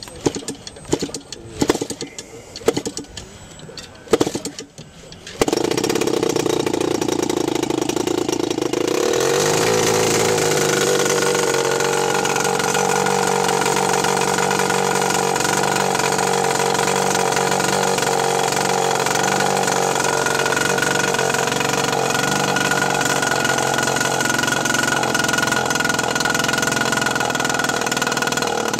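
Quarter-scale Sopwith Pup model's gasoline engine being hand-started: several sharp knocks as the propeller is flipped, then it catches about five seconds in and runs, settling into a steady run a few seconds later.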